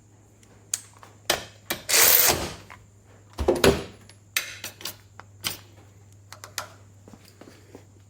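A torque wrench and socket being fitted and worked on a bolt: metal clicks and clanks, a louder scraping rustle about two seconds in, and a heavy thunk about a second and a half later.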